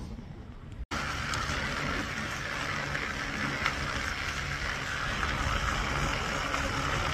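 Steady rushing noise of a loaded bicycle and trailer rolling along a road, tyre and wind noise. It starts abruptly about a second in.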